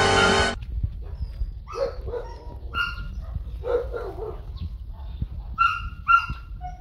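Music cuts off about half a second in. A string of short, sharp animal calls follows, about ten spread unevenly over the next six seconds.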